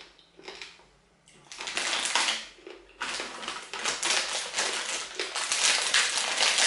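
Crinkly plastic snack packaging being scrunched and handled: a burst of dense crackling starts about a second and a half in, breaks off briefly, then resumes at about three seconds and keeps going.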